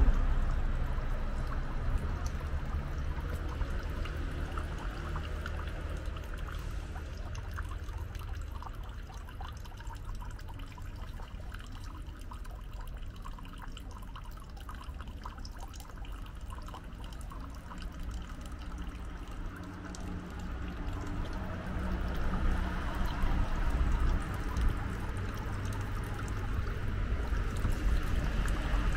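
Water trickling and pouring steadily, over a low rumble, growing louder over the last few seconds.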